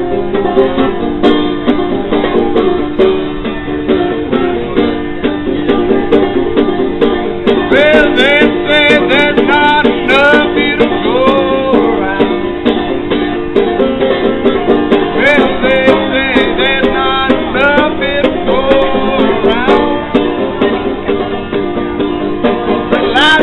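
Banjo played by a busker in a quick, steady plucked rhythm, with a man singing along in phrases from about eight seconds in.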